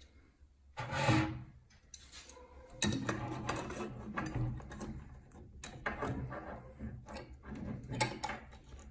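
Small C-clamps being screwed down tight on an aluminium lure mold: the clamp screws turning with small metallic clicks and scrapes, from about three seconds in.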